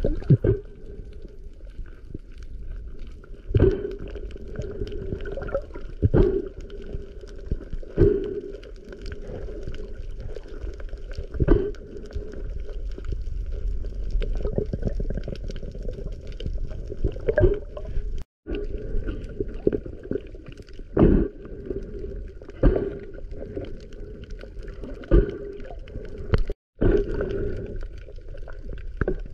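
Water gurgling and sloshing over a steady low hum, with a sharp splash or knock every two to three seconds. The sound cuts out completely twice, briefly.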